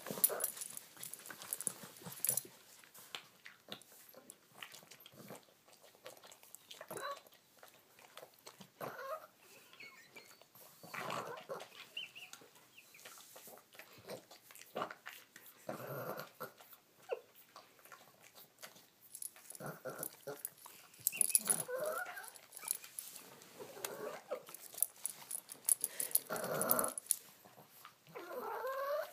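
Boston Terrier making odd alien-sounding vocal noises while eating: scattered short whining, grumbling calls that bend up and down in pitch, with chewing clicks between them.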